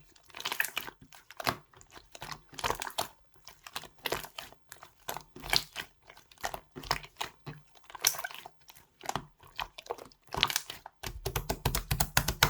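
Pink translucent slime squished and folded by hand, crackling and popping with trapped air in repeated bunches of clicks about once a second, then a fast run of clicks near the end.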